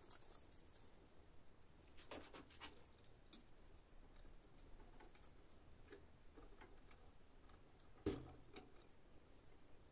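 Faint metal clicks and taps of a small hand vise being handled and fitted onto copper wires held in a bench vise, with one louder knock about eight seconds in.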